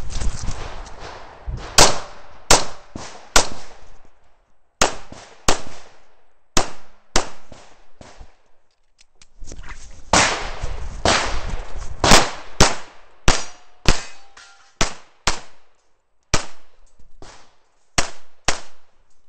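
Some twenty pistol shots from a stainless Dan Wesson PM7 1911 in .45 ACP, fired singly and in quick pairs during a timed IDPA course of fire. Between strings there is the rustle and scuffing of the shooter moving.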